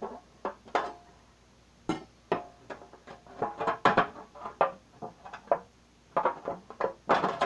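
A hammer tapping the back of a knife blade to cut through a thin tin cookie-tin lid: a run of irregular, sharp metallic strikes, each with a short ringing tone from the tin.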